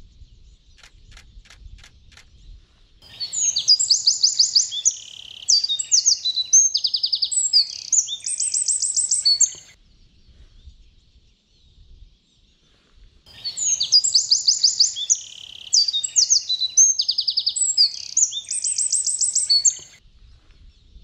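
A songbird singing two long, loud songs about ten seconds apart, each some six seconds of rapid high trills and varied phrases. A few short high ticks come before the first song.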